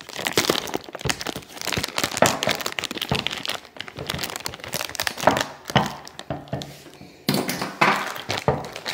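Clear plastic bag crinkling and rustling as a boxed coilover shock with an orange spring is handled, with an occasional knock against the cardboard box. The crackling is irregular and dense, easing briefly near the end before picking up again.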